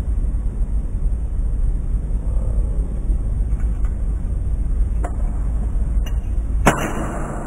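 Kick scooter's wheels rolling on a concrete floor with a steady low rumble, a couple of light clicks late on, and one sharp clack of the scooter on the concrete near the end.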